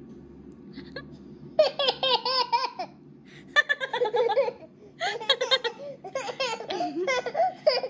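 A young child laughing in repeated high-pitched bursts and giggles, starting about one and a half seconds in, over a steady low hum.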